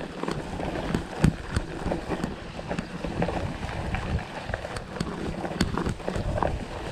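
Mountain bike rolling over bumpy grass: a steady rumble of tyres and wind on the microphone, with irregular rattles and knocks from the bike, one sharper knock about a second in.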